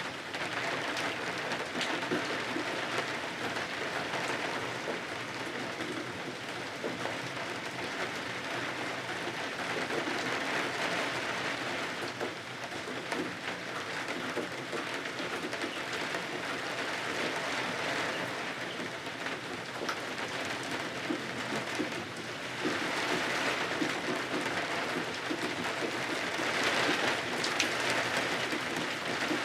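Steady rain falling, swelling heavier in waves every few seconds.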